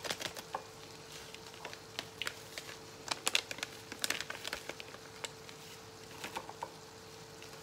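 Plastic sauce-mix sachets crinkling and crackling as they are handled and shaken to empty powder into a mug, the crackles busiest about halfway through. A faint steady hum runs underneath.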